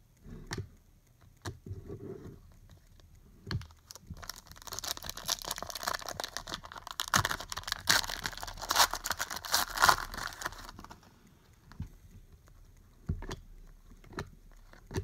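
Plastic trading-card pack wrapper crinkling and being torn open for several seconds in the middle, with scattered sharp clicks of cards being handled before and after.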